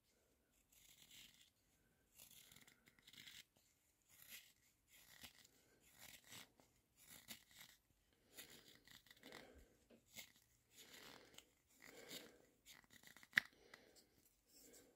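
Freshly sharpened carving gouge paring chips from a thin strip of wood in a series of short, faint cutting strokes, roughly one a second, with one sharper click near the end. The cuts test the edge: a sharp gouge leaves a smooth, shiny cut.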